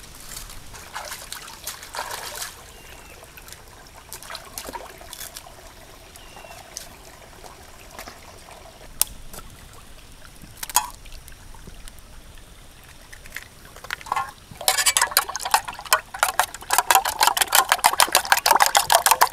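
Dry leaves crinkling at first. Then a few sharp taps as eggs are cracked open with a spoon. From about three-quarters of the way in, a spoon beats raw eggs fast in a metal camping pot, with quick, even clinks and sloshing at roughly five strokes a second; this is the loudest part.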